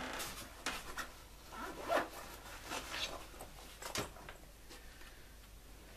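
Hands picking up and handling a clamp meter: a few short rustling scrapes in the first four seconds, then it goes quieter.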